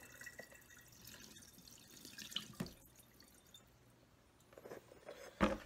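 Cooling water draining from a plastic bowl of hard-boiled eggs into a stainless steel sink, trickling and dripping, with a few light clicks. A sharp knock near the end.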